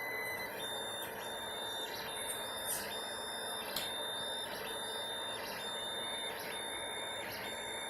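3D printer at work: its stepper motors give a high, steady whine in repeated strokes about half a second long, one after another as the head runs back and forth, over the steady hum of its fans.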